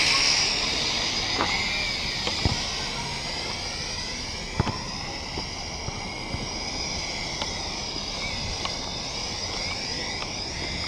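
Small six-rotor hobby drone's propellers whining, several tones wavering up and down in pitch as the motors change speed. It is loudest at the start, while the drone hovers close by. A few sharp clicks are heard along the way.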